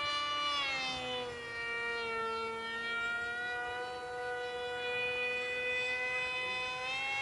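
Radio-controlled model Eurofighter (EFA) jet in flight, its motor giving a steady high-pitched whine. The pitch drops about a second in, holds level, then rises again near the end.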